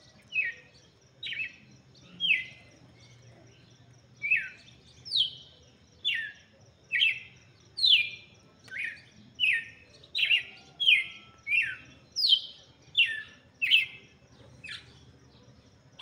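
Red-cowled cardinal (galo-de-campina) giving a long series of short notes, each sliding down in pitch, roughly one or two a second, with a brief pause about three seconds in.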